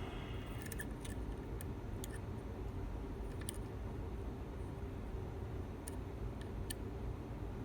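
Faint, irregular metallic clicks of a lock pick working the pins inside a Lockwood MT5+ pin-tumbler lock, about ten in all, over a steady low hum.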